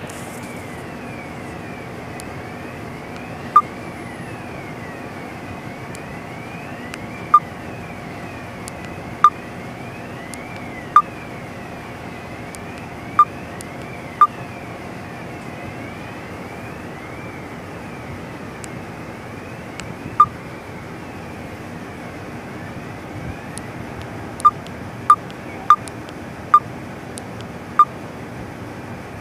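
Steady machinery drone aboard a ship under way, with a faint wavering whine that rises and falls. Short sharp beeps cut through about a dozen times, several in quick succession near the end.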